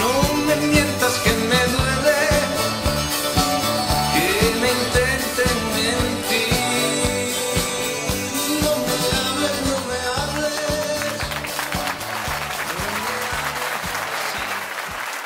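A man singing live into a microphone with two acoustic guitars strumming a steady rhythm, bringing the song to its close. About eleven seconds in, audience applause rises over the final bars.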